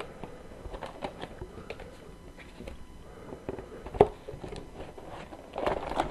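Hands handling a cardboard trading-card hobby box and its packs: scattered light clicks and rustles, a sharper knock about four seconds in, and a louder rustle near the end.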